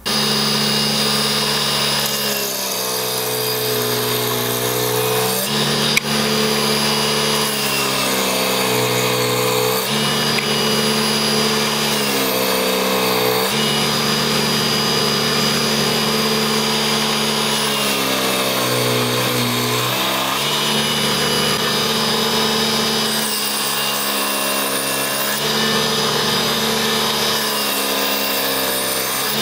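Home-made mini table saw driven by a DC 775 motor through a timing belt, its 60 mm circular blade running steadily and cutting wood. The motor's whine drops in pitch as the blade takes load and recovers as it clears, about six times.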